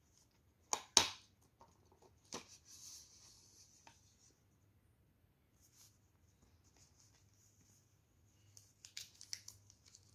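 Handling noise from a smartwatch being pulled out of the moulded plastic tray in its cardboard box. There is a sharp click about a second in, then another click with a brief rustle, and a flurry of small clicks and rustles near the end.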